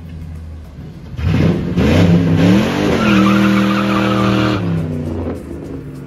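Ford Mustang convertible engine revving hard as the car pulls away: it bursts in about a second in, climbs in pitch, then holds a steady high note for a couple of seconds before easing off near the end. The tyres squeal along with it.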